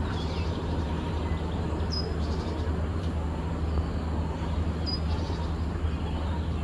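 A steady low motor hum with an even noisy wash over it, and two short high chirps about two and five seconds in.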